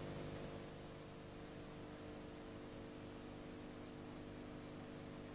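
Faint steady electrical hum over hiss, with no other event: the background noise of the recording.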